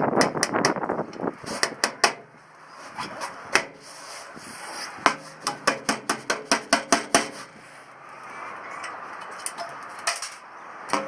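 Hammer blows on the chicken shed: a few scattered strikes, then a quick run of about a dozen blows, roughly five a second, a few seconds in.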